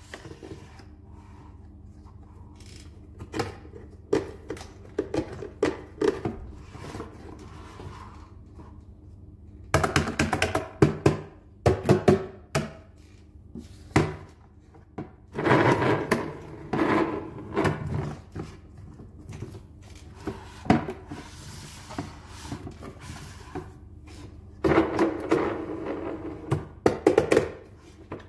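Hard plastic toy dump truck being handled by hand: its dump bed and parts knock, click and rattle in several busy spells of clattering, with single knocks between.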